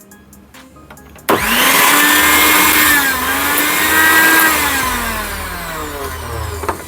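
Preethi mixer grinder's motor switched on about a second in, spinning up almost at once to a steady high whine. After about three seconds it is switched off and winds down with a falling pitch. This is a test run after its bushes were replaced.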